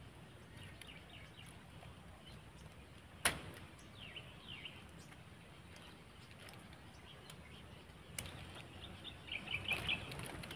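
Faint chirps of small birds, with one sharp click about three seconds in and a weaker click near the end.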